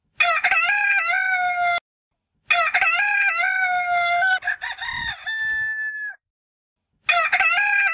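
Rooster crowing a cock-a-doodle-doo three times, each crow ending on a long held note; the second crow is the longest, and the third starts near the end.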